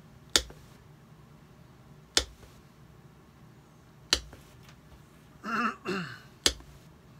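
A shoemaker's hammer tapping small 10 mm brass nails into a leather shoe heel on a last: four sharp single taps, about two seconds apart. A brief hum from a person's voice comes just before the last tap.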